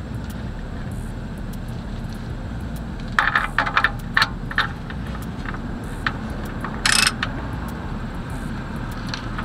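Metal clicks and clinks from a socket ratchet and tools being worked: a cluster of quick clicks a few seconds in and a single sharper clink about seven seconds in, over a steady low background rumble.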